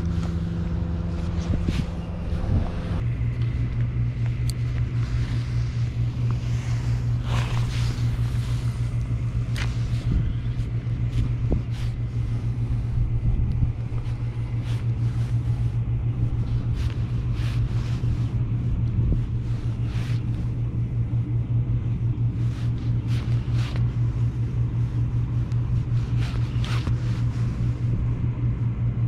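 Steady low drone of a running engine, which shifts down slightly in pitch about three seconds in and then holds. Scattered light clicks sound over it.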